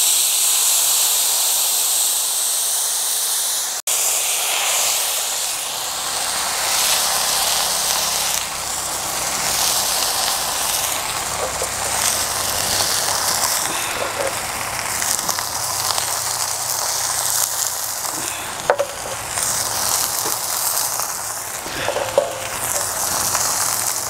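Banana-leaf-wrapped fish parcels sizzling on a hot, oiled flat iron griddle: a steady frying hiss as the parcels fry in their wrappers.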